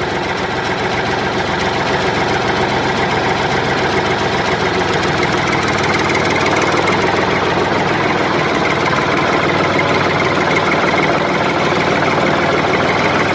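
Tractor engine sound running steadily at an even pace, with no change in speed.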